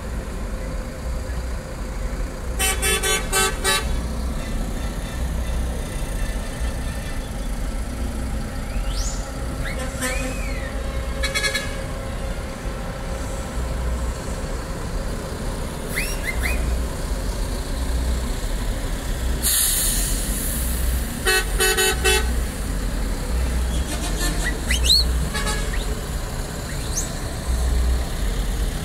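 City buses driving through a roundabout with engines rumbling steadily. A bus horn sounds twice, a blast of about a second roughly three seconds in and another about twenty-one seconds in. A short hiss comes just before the second blast.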